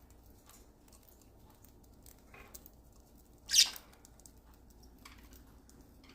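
Budgies pecking and scrabbling at a treat, a scatter of faint small ticks and patters, with one short, loud, sharp noise about three and a half seconds in.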